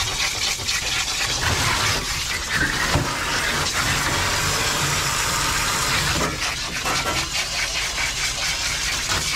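Water spraying steadily from a bathing-hose nozzle as it is worked through a wet husky's coat in a stainless steel tub, with a low steady hum beneath.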